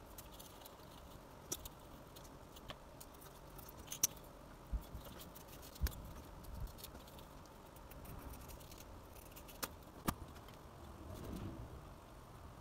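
Faint handling sounds of foam board craft work: a pencil, a steel ruler and foam board strips moved and set down on a cutting mat, giving scattered sharp clicks and a few soft thuds.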